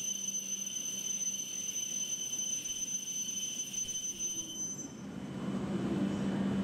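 Electrical equipment and blowers of a standing E7 series Shinkansen train. A steady high whine cuts off about five seconds in, and a fan-like rushing noise with a steady low hum then rises and holds.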